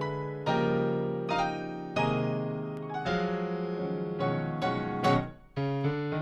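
Electric piano playing a gospel chord progression, sustained chords changing about once a second. A rising swell near the end cuts off sharply just before the next chord.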